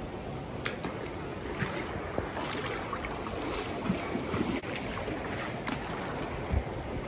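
Floodwater from an overflowing creek rushing steadily, with a few faint knocks.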